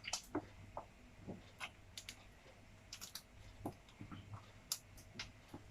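Faint, irregular small clicks and ticks, about a dozen and a half scattered over a few seconds, in an otherwise quiet room.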